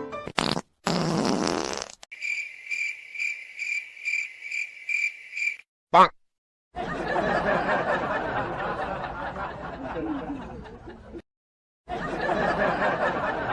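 A wet fart sound effect near the start, then a cricket-chirp sound effect repeating evenly for about three and a half seconds, and a brief loud swish about six seconds in. After that come mixed voices with some laughter.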